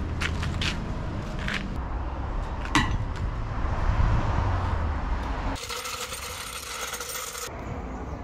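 Metal hand tools clinking against a van's wheel and bolts during wheel removal, with one sharp ringing metal clank about three seconds in over a steady low rumble. A hiss starts and stops abruptly near the end, lasting about two seconds.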